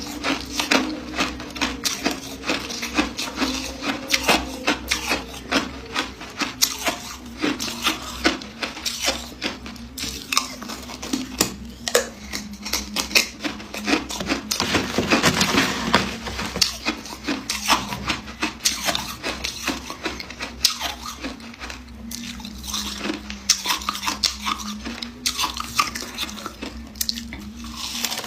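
Ice being bitten and chewed close to the microphone: a dense, irregular run of sharp crunches, over a faint low steady hum.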